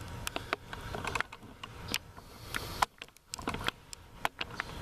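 Irregular clicks and light knocks of equipment being handled, spaced unevenly, over a faint background.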